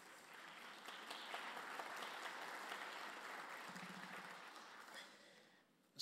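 Faint audience applause that swells over the first second, holds, then fades and cuts off shortly before the end.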